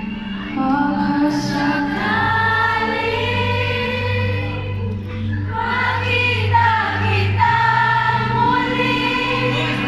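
Live band with a woman singing long held notes over sustained bass and keyboard chords, heard from the audience of a concert hall.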